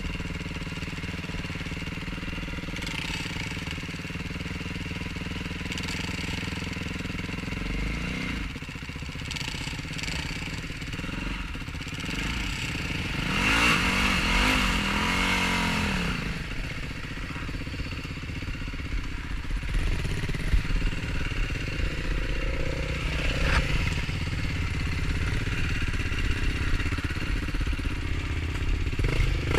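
Off-road quad (ATV) engines running throughout; about halfway through one engine comes up loud and its pitch rises and falls, as when revved or passing close by.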